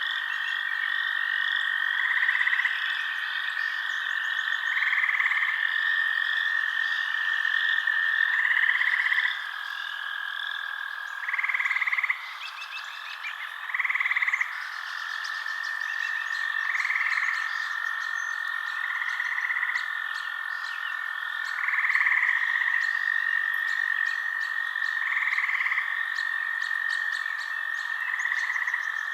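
Night chorus of frogs calling. A steady high trill runs underneath, a louder call repeats about every two to three seconds, and busier, higher chirping sits on top.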